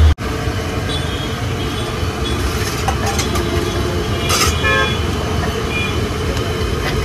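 Steady street-stall noise with traffic and short vehicle horn toots. A steel ladle clinks against a steel pot about four seconds in.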